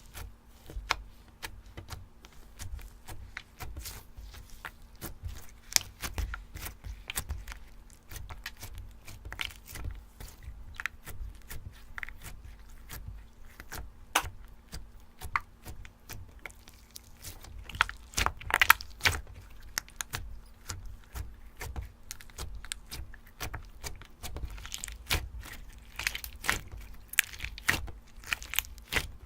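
Slime being squeezed and pressed by hand: a dense, irregular run of small crackling clicks and pops, with a louder cluster a little past halfway.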